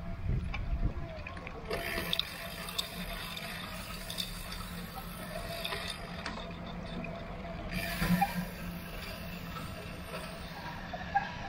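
Bicycle riding on a wet road: the tyres hiss through the water and the freewheel ratchet ticks, over a steady low rumble, with a louder swell about eight seconds in.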